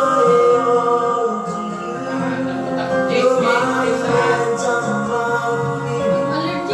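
Karaoke: a man singing into a microphone over a music backing track played through the videoke machine's speakers.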